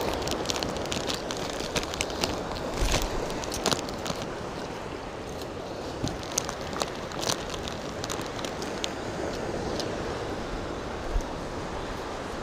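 Ritz crackers crunching as they are chewed close to the microphone, in irregular crisp crunches that thin out over the last few seconds. Steady wind and surf run underneath.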